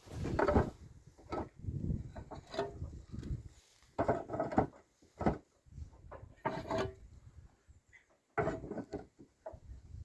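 Irregular knocks, clatter and scraping as building materials are handled during roof repair work, some strikes with a short ring.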